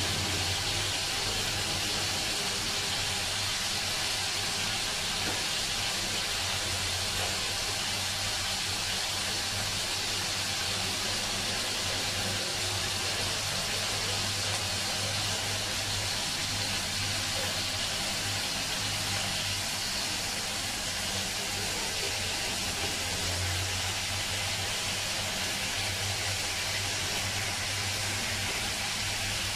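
Marinated lamb pieces sizzling steadily in a nonstick frying pan over a gas flame, with a low steady hum underneath.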